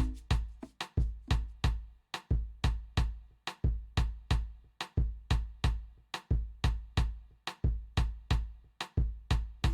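Latin lounge instrumental music in a drum-led passage: a steady beat of deep kick-drum thumps, about three a second, with crisp clicking percussion on each hit.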